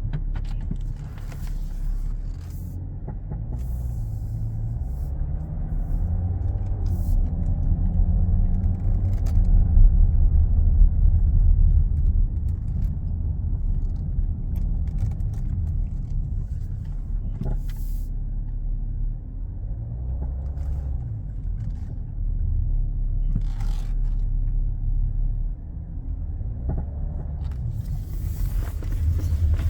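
VW Touareg 7P under way: a low rumble of engine and road, the engine note rising and falling, with a few short sharp knocks. These knocks are the front-suspension knocking that the owner puts down to worn control arms.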